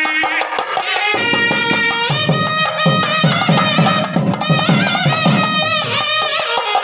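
Indian devotional music: a melody with wavering, gliding notes over a steady drum beat.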